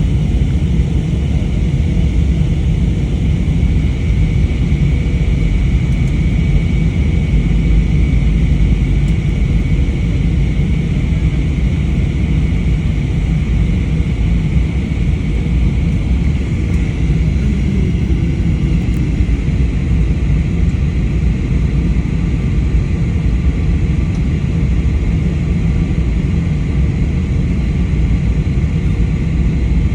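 Steady, loud rumble of a vehicle in motion with a few faint steady tones above it, unchanging throughout.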